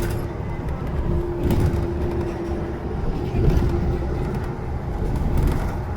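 Steady low rumble of passing vehicles, with a faint steady tone for a few seconds partway through.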